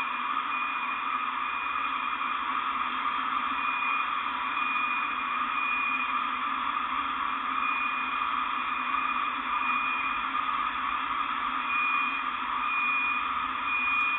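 Hissy, muffled audio of footage of the moment after a large street explosion, band-limited like a recording played back through a small speaker: steady noise with a high beeping tone that repeats about once a second, with short breaks.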